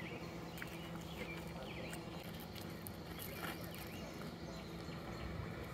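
Faint riverside ambience: short high chirps, as of birds, scattered over a steady low hum, with a few light clicks.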